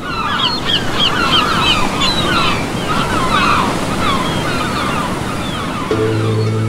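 Sea surf washing steadily, with birds calling repeatedly over it in the first few seconds. Near the end, soft music with long held notes comes in.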